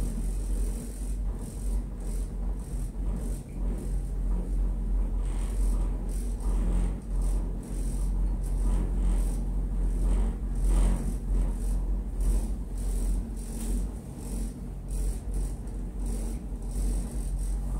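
Tanigawadake Ropeway funitel gondola cabin riding up the line, heard from inside: a steady low rumble with a faint hum and a constant rattling of the cabin's windows and fittings. The rattling swells briefly about eleven seconds in.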